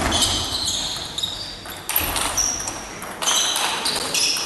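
Table tennis rally: a quick run of sharp ball hits off bats and table, about two to three a second, each with a short high ringing ping.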